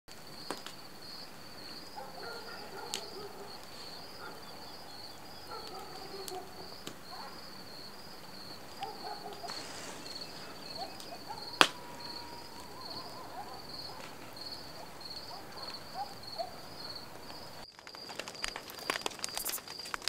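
Night ambience of crickets chirping in a steady, even pulse, with a few faint brief calls in the background and one sharp click a little past halfway. Near the end a wood fire crackles and pops close by, the crickets still going under it.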